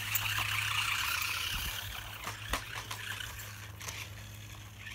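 Small electric motor of a toy radio-controlled car whirring as it drives over grass, fading after about two seconds, followed by a few scattered clicks and knocks.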